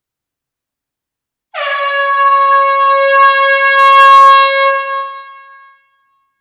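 An air horn sounds one long, steady blast in an enclosed hall. It starts abruptly about a second and a half in and fades away over its last second.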